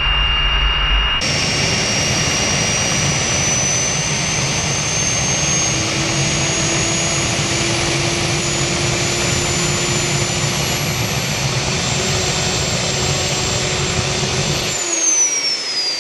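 Homemade small turbojet engine running on hawthorn tincture, an alcohol fuel, and making almost no thrust on it: a steady jet roar with a thin high turbine whine that climbs slowly. Near the end the roar drops away and the whine falls as the engine spools down.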